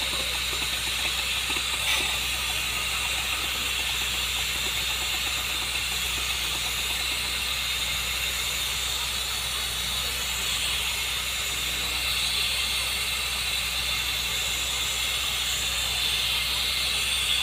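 Water-well drilling rig running steadily while boring a tube well: a continuous hiss over a low, even engine drone.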